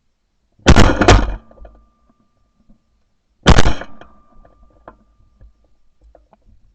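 Two shots from a Franchi Affinity Elite 3.5, a 12-gauge semi-automatic shotgun, about three seconds apart. Each is a sharp, very loud blast followed by a short ringing tail.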